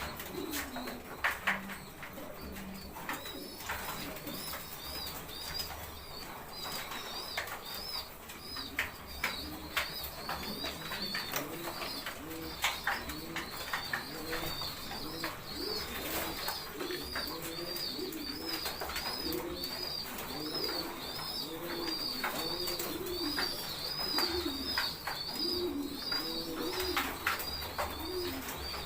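Domestic pigeons cooing over and over in the loft, the coos coming steadily from about six seconds in, over a constant rapid high-pitched peeping and scattered light taps.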